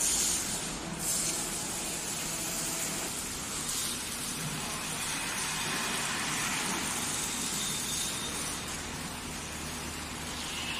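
Steady factory background noise: a low mechanical hum under an even hiss, with no distinct knocks or events.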